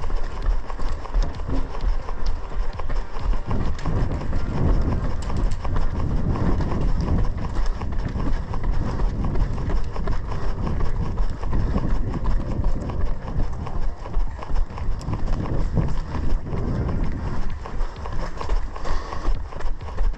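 Running footsteps on cobbled pavement, heard through a head-mounted camera: a steady rhythm of thuds about three a second from a group of runners at race pace.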